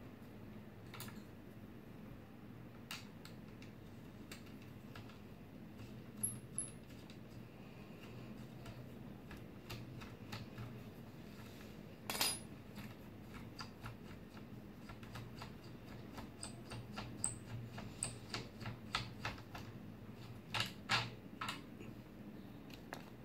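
Small clicks and taps of hand tools against the printed plastic parts of a 3D printer's extruder as it is taken apart, over a faint low hum. There is a sharper click about twelve seconds in, and a quick run of clicks in the last several seconds.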